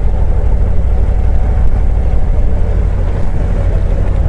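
Harley-Davidson Street Glide Special's V-twin engine running while the motorcycle is under way, a steady low throb.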